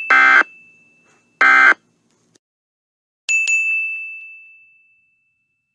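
Sound-effect bell dings of the CinemaSins-style sin counter, each a single high ring fading away. Between them come two short, harsh buzzer blasts about a second apart, then a last ding about three seconds in that fades out over a second and a half.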